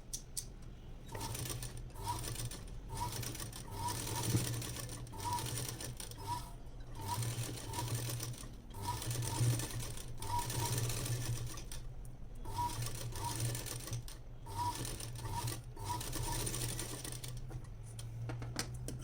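Sewing machine stitching a seam in short runs, stopping briefly every second or two and starting again as the fabric is guided under a single-sided presser foot.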